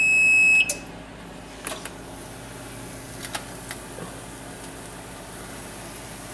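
Electronic control-panel beep of a wall oven, one steady high-pitched tone, ending just over half a second in as a button is pressed. Then a few light clicks as the oven door is opened, over a steady low hum.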